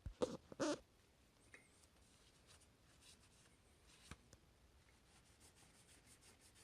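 Faint scraping and rubbing of a hand tool cleaning old gasket material off an engine block's sealing surface, with light clicks throughout. Two brief louder scuffs come about half a second apart near the start.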